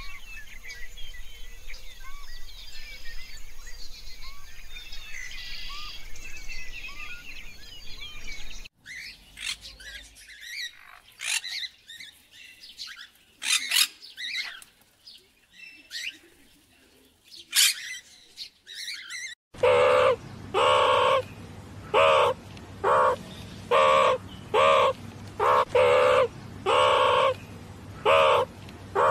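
Birdsong and animal calls in three parts: a dense chatter of small high chirps, then a few scattered squawks after a cut, then a loud call repeated about once a second, each with a slightly bending pitch.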